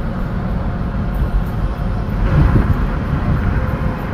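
Steady low rumble of tyre and engine noise heard inside a car's cabin at highway speed, swelling briefly about two seconds in as another vehicle passes close alongside.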